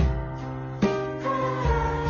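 Music: a melody of held notes that change about once a second, over a steady low bass.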